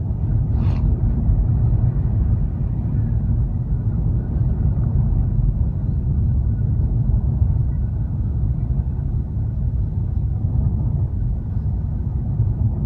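Steady low rumble of a car driving, tyre and engine noise heard from inside the cabin, on ice-covered roads.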